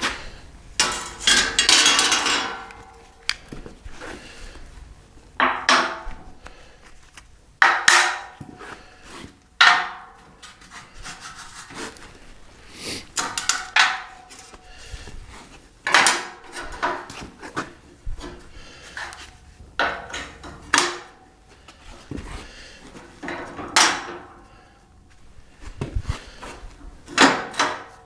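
Steel tubing of a chassis jig being handled and set into place: irregular knocks and clanks about every second or two, some ringing briefly, with a stretch of scraping about two seconds in.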